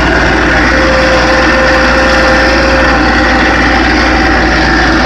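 Farm tractor engine running steadily, heard from the driver's seat.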